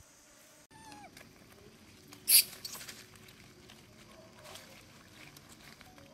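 A monkey gives one short, harsh call about two seconds in, the loudest sound here. Fainter calls and clicks come before and after it.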